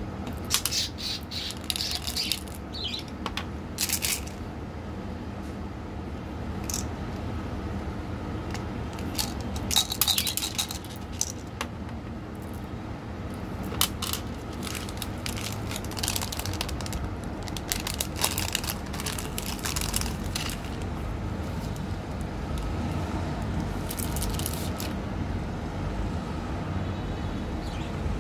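Small irregular clicks, taps and scrapes of hard sugar-coated chocolate candies and plastic candy tubes being handled and set down on a tabletop, with a few short rustling bursts, over a steady low hum.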